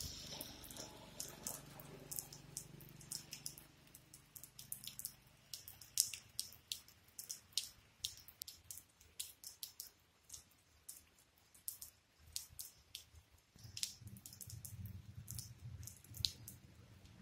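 Rainwater dripping in irregular drops, several a second, onto wet ground. A faint low rumble sits underneath for the first few seconds and returns for the last few.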